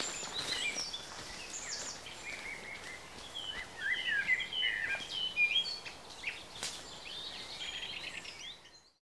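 Several songbirds singing at once, short chirping phrases overlapping one another over a faint outdoor hiss; the sound fades out near the end.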